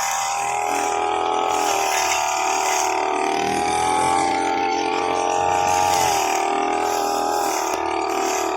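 Motor of a cheap grass-cutting machine running steadily, its pitch dipping briefly twice.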